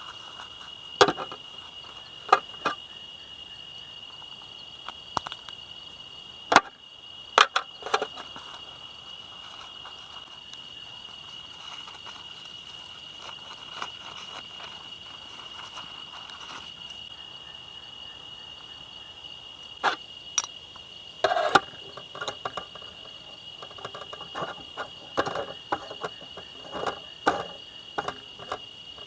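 Steady high-pitched chirring of insects, crickets or similar, with scattered sharp knocks and clatters of camp gear being handled, several loud ones early on and a run of smaller ones near the end.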